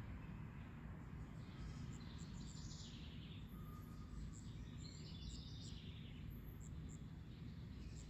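Faint outdoor ambience: small birds chirping in a few short bursts over a low, steady rumble.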